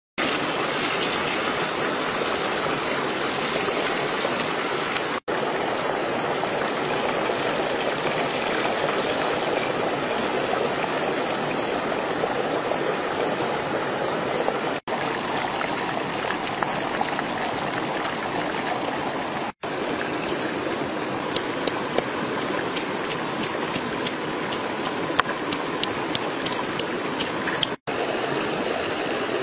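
Steady hiss of whole fish frying in bubbling oil in a pan over a wood fire, blended with running stream water, with scattered small pops. The hiss is broken by four very brief silences.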